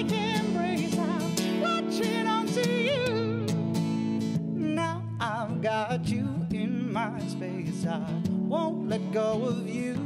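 A man singing held, melismatic lines with a wavering vibrato over a strummed acoustic guitar.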